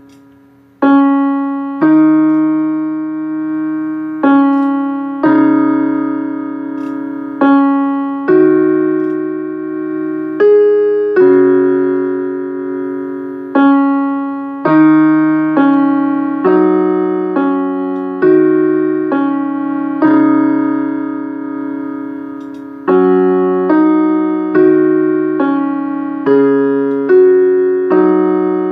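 Slow solo keyboard music: chords struck roughly once a second, each ringing out and fading before the next, with a few longer held chords.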